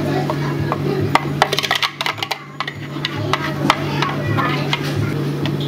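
Irregular light clicks and taps of utensils and containers being handled while food is prepared, over a steady low hum.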